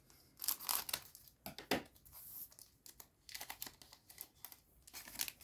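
Digimon Card Game booster pack wrapper being torn open and crinkled, in irregular crackling bursts that stop at the end.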